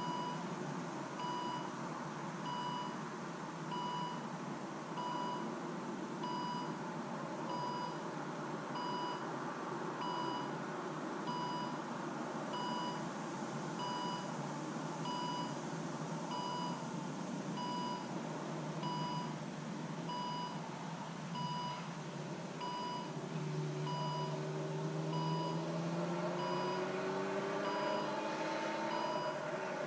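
Electronic beep repeating steadily about once a second: the Volvo V60's warning chime with the ignition switched on. From about two-thirds of the way in, a hum rising slowly in pitch joins it.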